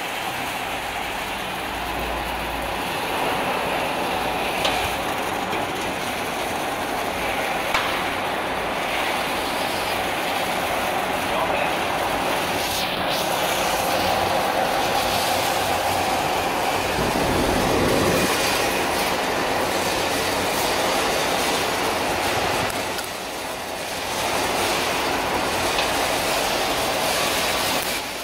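Sunflower seed cooling machine running: overhead axial fans blowing down onto a moving mesh-belt conveyor of roasted seeds, a steady mechanical rattle and rush of air.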